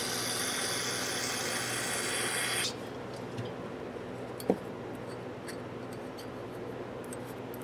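Aerosol carburetor cleaner spraying with a steady hiss, washing rubbing-compound residue off ratchet parts; the spray cuts off abruptly under three seconds in. Afterwards a few faint ticks and one sharp click of small metal parts being handled.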